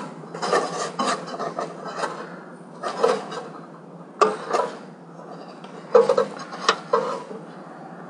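Scattered rubbing and light metallic clinks as wires and the metal rod of a Camco Hybrid Heat element are handled against the sheet-metal housing of an RV water heater. The sounds are short and irregular.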